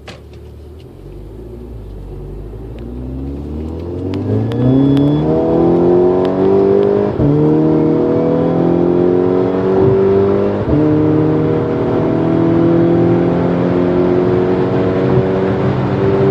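Volkswagen GTI's turbocharged four-cylinder with a Unitronic Stage 2 tune and turbo-back exhaust, heard inside the cabin under hard acceleration: the engine note climbs steadily and grows louder, with quick DSG upshifts about seven and ten seconds in, where the pitch drops and starts climbing again.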